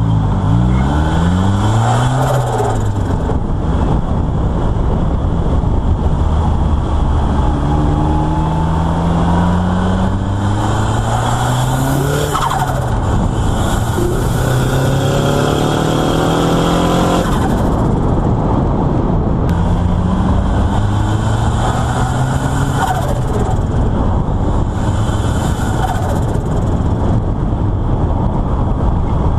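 Turbocharged 2.0-litre four-cylinder Nissan SR20DET engine in a Mk2 Ford Escort, revving loudly: its pitch climbs and drops several times, with two longer climbs near the middle.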